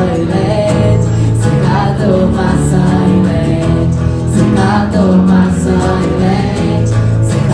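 Music: an acoustic-guitar-led song playing on, with bass notes and singing without clear words, just after the chorus's last line.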